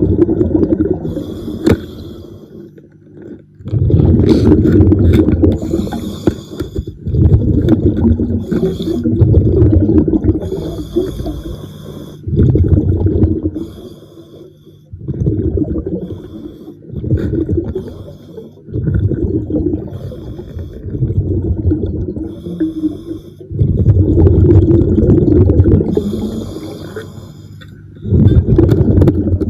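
A scuba diver breathing underwater through a regulator. The exhaled air leaves as bursts of bubbles that rumble in repeated surges every few seconds, and short hissing breaths are drawn in between.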